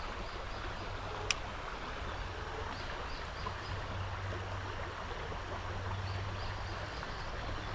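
Creek water running over a riffle: a steady rushing hiss, with a single sharp click about a second in and faint, high, repeated chirping behind it.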